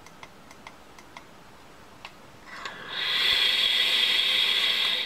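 A few light clicks, then a long puff drawn through a Kangertech Subtank Mini atomizer on a Subox Mini mod with its airflow wide open: a steady hiss of air and sizzling coil that swells in about halfway through, holds for about two seconds and cuts off sharply. The 0.5 ohm coil is running at 30 W, which is more than it needs.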